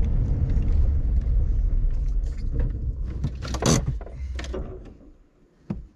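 Jeep Cherokee XJ driving on a paved road: a steady low rumble of engine, tyres and wind on the microphone, with a short louder burst of noise past the middle. The rumble fades out about five seconds in, followed by a single click just before the end.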